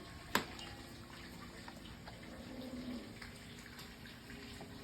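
Faint room noise with a single sharp click a little under half a second in.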